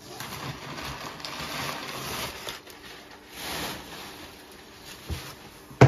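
Rustling and scraping of a cardboard box and its brown packing paper being handled, in noisy stretches, with a small knock about five seconds in and a sharp, louder knock near the end.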